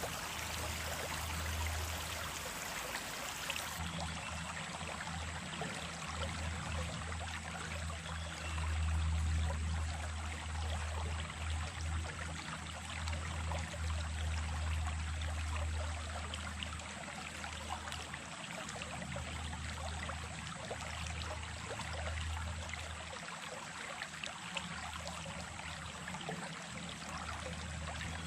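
Small brook running steadily, an even rushing and splashing of water with an uneven low rumble under it.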